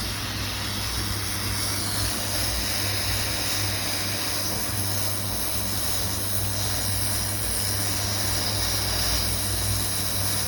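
Hot-air rework station blowing steadily, a constant airflow hiss over a low hum, as it heats the solder to seat a replacement MOSFET on the laptop board.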